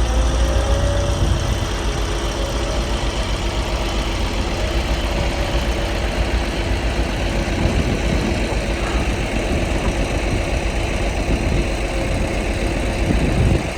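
11-ton, 84-inch-wide Bomag padfoot compactor running steadily, its diesel engine giving a deep, continuous rumble with a faint wavering whine above it.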